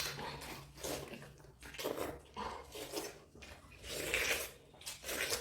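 Wet biting, slurping and chewing of juicy watermelon, in irregular short bursts.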